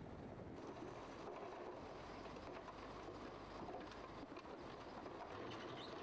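Steady rush of fast-flowing flood water under a running truck engine, with scattered clatter of rocks tipping from a dump truck's raised bed.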